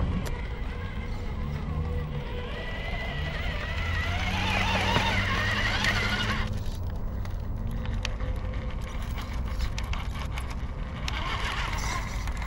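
Vanquish VS4-10 RC rock crawler's electric motor and gearbox whining, rising and falling with the throttle as it climbs rock, over a steady low rumble. Scattered small clicks in the second half.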